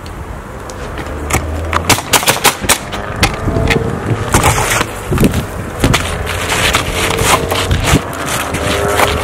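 Pneumatic roofing nailer driving nails into asphalt shingles: a quick run of sharp shots starting about a second in, followed by more scattered shots.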